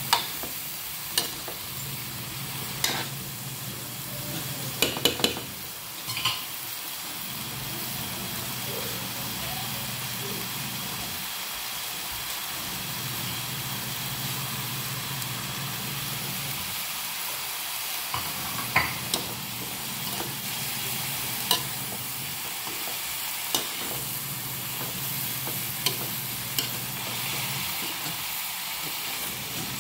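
Vegetables (sliced kamansi and string beans) sizzling as they are stir-fried in a wok, with a metal spatula scraping and clinking against the pan. The sharp clinks come in clusters in the first several seconds, then singly every couple of seconds.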